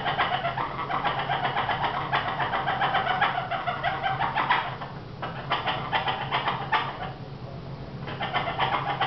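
Amazon parrot giving a rapid run of short, repeated 'eh eh eh' calls, its courtship display. The calls break off briefly about five seconds in and go quieter near the end.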